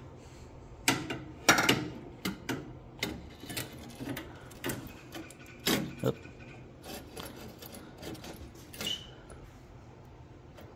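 Irregular clicks, knocks and rubbing as an aluminium tube-and-fin transmission cooler is handled and held against the front of the radiator while a mounting spot is tried.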